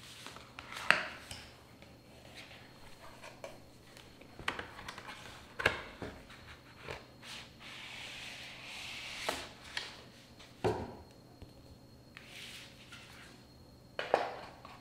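Stiff paper and cardboard being handled on a wooden table: a printed wall calendar slid out of its cardboard backing, with rustling, a longer sliding swish around the middle, and several sharp taps as the cardboard knocks the tabletop.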